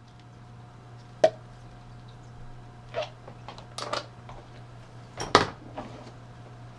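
Handling noise: a few separate sharp clicks and knocks as hard items are picked up and put down, the loudest about five seconds in, over a steady low hum.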